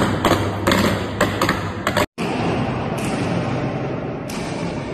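A rapid string of explosive bangs, about three a second, echoing from an underground car park. The bangs stop abruptly after about two seconds and give way to a steady noisy rumble.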